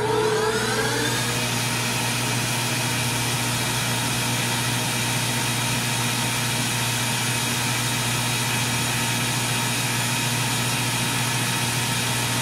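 Metal lathe spinning up over the first second or so, then running at a steady speed as its four-jaw chuck turns a rifle barrel for hand polishing of the chamber.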